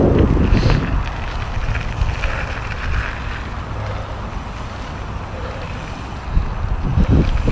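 Wind buffeting the microphone while a mountain bike rolls down a dirt trail, a steady low rumble of tyres on the dirt. It is louder in the first second, eases off, and picks up again near the end.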